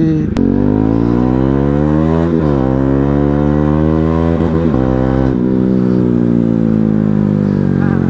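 Benelli 302S's 300cc parallel-twin engine accelerating through the gears: its pitch climbs, drops sharply at shifts about two and a half and five seconds in, then falls slowly as the throttle eases off.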